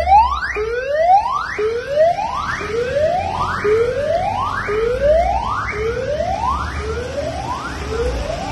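Ambulance siren sounding a repeated rising whoop, about one sweep a second, each climbing and then dropping back sharply. It fades slightly near the end as the vehicles pass.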